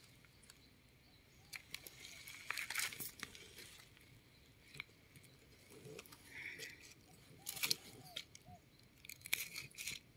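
Scattered crunching and rustling of dry leaf litter and gravelly forest soil as a hand works through the ground around wild mushrooms, with clusters of louder crunches about two and a half seconds in, again around seven and a half seconds, and near the end.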